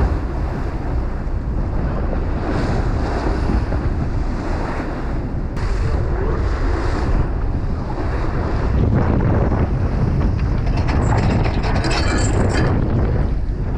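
Wind buffeting the microphone over the steady rumble and water rush of a fishing boat running at speed through a chop. The hiss swells briefly near the end.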